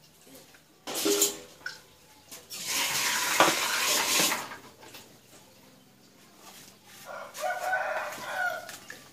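A rooster crowing twice: a loud, harsh crow about three seconds in and a fainter one near the end. A few light knocks of snail shells in an aluminium bowl come in between.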